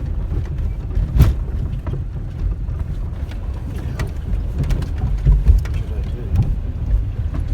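Car driving over a very bumpy, rough dirt track: a steady low rumble of engine and tyres, broken by frequent sharp knocks and rattles as the car jolts over the bumps, the loudest about a second in.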